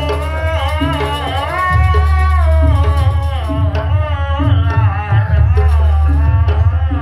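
Jaranan dance music: steady deep drum beats and a repeating low note under a high melody line that bends and wavers in pitch.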